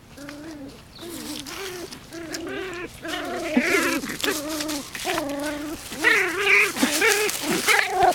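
A dog whining and whimpering in a quick series of short, wavering cries that grow louder partway through, with dry leaves crunching and rustling underfoot.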